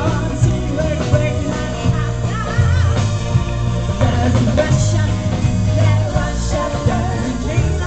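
Live band playing a song: a woman singing lead over electric and acoustic guitars, keyboard, bass and drums, loud and steady throughout.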